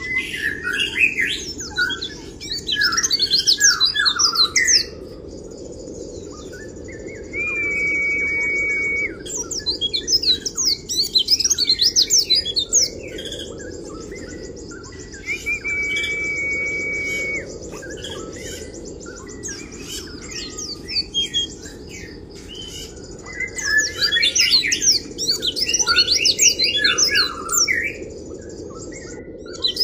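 White-eye (pleci) singing in bouts of rapid, high twittering chirps, the 'kriwik' style used in training recordings for other songbirds. Between bouts come a few long, level whistle-like notes, over a steady low background noise.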